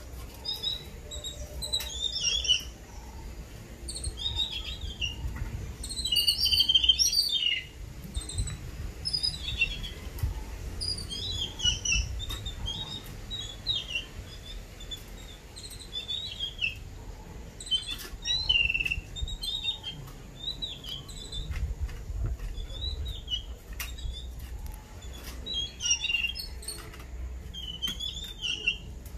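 A group of babblers calling: a continuous chatter of short, harsh chirps, loudest and densest about six to seven seconds in.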